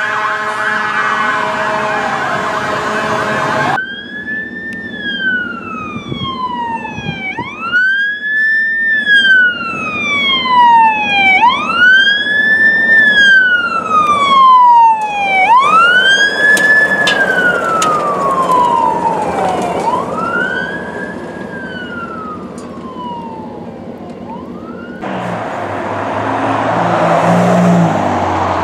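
Fire tanker truck's siren wailing. Each cycle climbs quickly and falls slowly, repeating about every four seconds. It is preceded by a few seconds of steady horn-like tones with a falling siren, and near the end gives way to the rumble of a fire engine pulling out.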